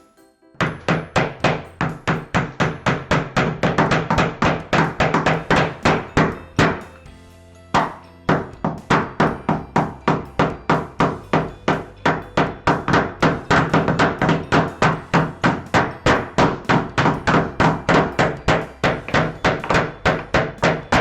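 Quick, even hammer strikes on the wooden kit pieces, several a second, with a short pause about seven seconds in, over background music.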